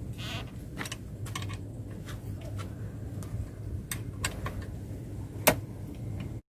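Scattered light clicks, taps and rustles of handling the stand's coated pipes and the fabric grow bag over a steady low hum, with one sharp knock about five and a half seconds in; the sound cuts off suddenly near the end.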